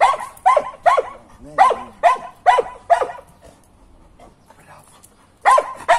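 Karelian bear dog barking: a quick run of about seven short barks, each dropping in pitch, then a pause and two more barks near the end.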